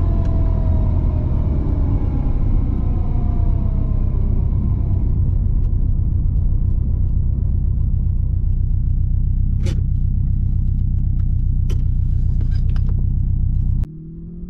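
Turbocharged Subaru WRX wagon heard inside the cabin while driving: a steady low drone of engine and road noise, its engine tone sliding down over the first few seconds, with a few faint clicks later on. Just before the end it cuts to a quieter engine revving up, rising in pitch.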